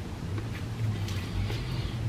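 Close-miked chewing and mouth sounds of a person eating, with one short crunch about a second in, over a low steady hum.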